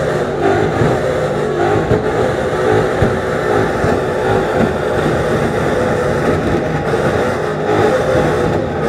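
Two Ford Mustang engines revved hard together through their exhausts, loud and continuous, during a 30-second rev-contest round.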